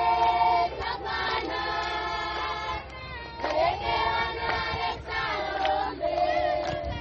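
A group of voices singing together in chorus, holding long notes in phrases of a second or two with short breaks between them.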